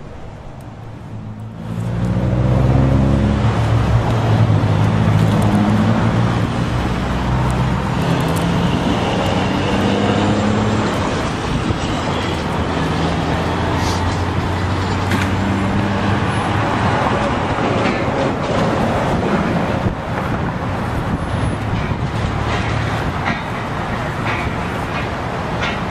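Road vehicle engine and traffic noise, starting about two seconds in and staying steady, with a low engine hum that wavers in pitch through the first half. A few short clicks sound in the second half.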